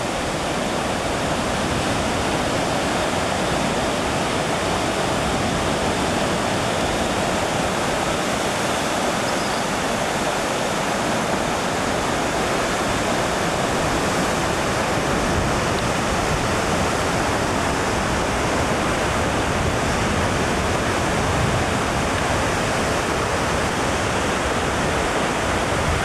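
Steady wash of Atlantic surf breaking on the shore and around offshore boulders, an even noise with no distinct waves standing out.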